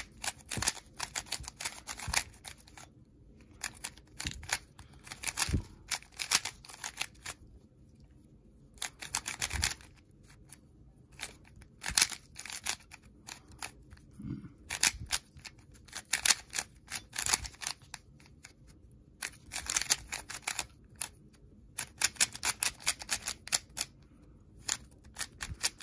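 New QiYi MS 3x3 magnetic speed cube being turned by hand: runs of quick plastic clicks and clacks as the layers turn, broken by short pauses.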